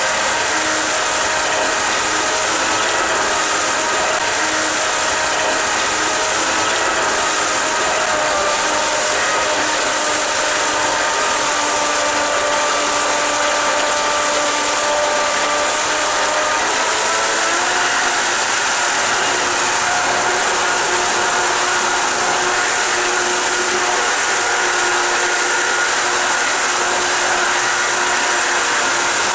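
Home-built electric jet-drive pump running in a test tank: its brushless motors whine over the rush of water churning through the pump and out of the outlet pipe. A steady high whine rides on top, and the motor pitch steps up about seventeen seconds in.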